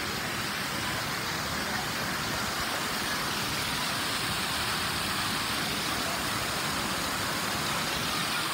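Steady hiss of splash-pad fountain jets spraying and splashing water.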